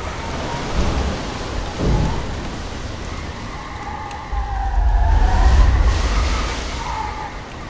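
Storm sound effects of a film soundtrack: steady heavy rain with thunder, a short low thump about two seconds in and a long rolling rumble that swells about four seconds in and fades toward the end.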